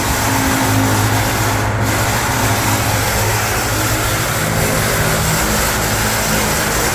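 Ventisilva VPL 65 cm, 150 W wall fan running: a steady rush of air over a low motor hum.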